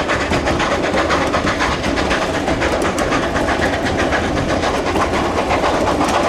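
Durango & Silverton K-36 2-8-2 No. 481, a narrow-gauge steam locomotive, working a freight train, heard from a car further back. Its exhaust mixes with the steady clatter and clicking of the freight cars' wheels on the rails.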